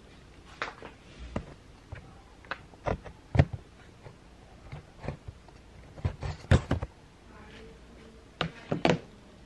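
Irregular knocks, taps and bumps, a dozen or so, from a camera being handled and repositioned behind a bedside lamp, the loudest about a third of the way in and two thirds in.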